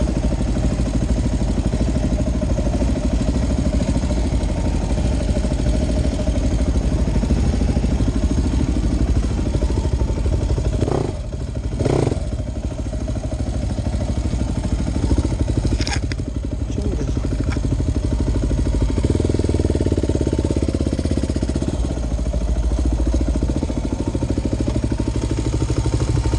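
Husqvarna enduro dirt bike's engine running steadily at low throttle as it is ridden slowly over rocks, with a few sharp knocks about 11, 12 and 16 seconds in.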